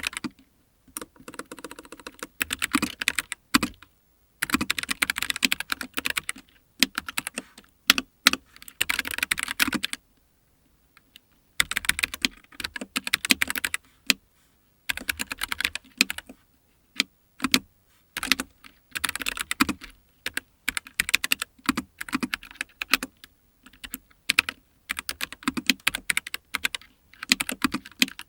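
Typing on a Keychron K9 Pro low-profile mechanical keyboard: rapid runs of key clicks in bursts of a few seconds, broken by brief pauses.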